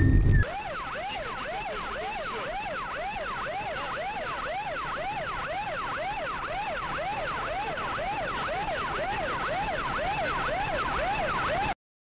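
Police siren: a wail holds high, then about half a second in gives way to a fast yelp rising and falling about twice a second over vehicle noise. The siren cuts off suddenly near the end.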